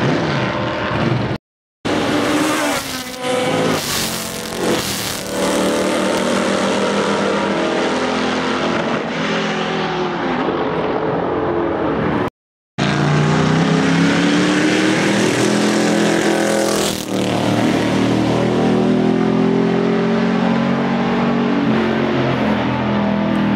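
Historic sports-racing car engines running hard as cars pass and rev, the pitch rising and falling with gear changes. The sound cuts out completely twice, briefly, about a second and a half in and again near the middle.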